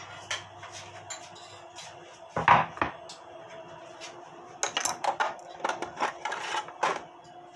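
A heavy end-grain wooden cutting board set down on the kitchen counter with two or three loud knocks, followed a couple of seconds later by a run of lighter clattering and clinking of kitchen things.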